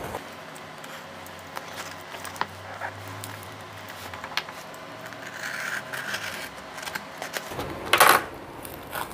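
Snap-off utility knife working at packing tape on a cardboard parcel: scattered light clicks and scratches, with one louder scrape about eight seconds in.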